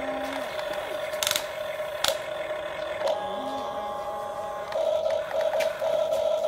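Huina radio-controlled toy excavator working: a steady whine from its small electric motors and gearboxes as the boom and bucket move. There are two sharp clicks, about one and two seconds in, and near the end the whine turns pulsing.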